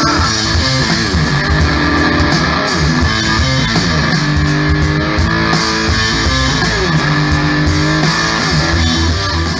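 Rock band playing: an electric guitar riff with bass notes over steady drum hits and cymbals, some guitar notes sliding up and down in pitch.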